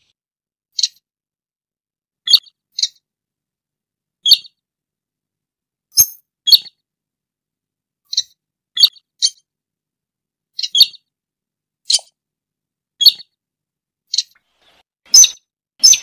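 Slaty-breasted rail (sintar) calling: a string of short, sharp, high calls, some single and some in quick pairs, about one a second, with clean gaps between them.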